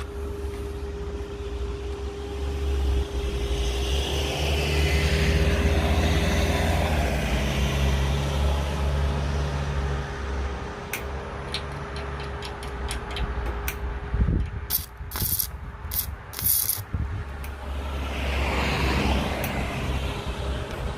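MIG 125 welder arc crackling and hissing over a steady hum, then breaking into short separate crackling bursts, cutting in and out, about halfway through. The arc is faltering because the wire feed is failing.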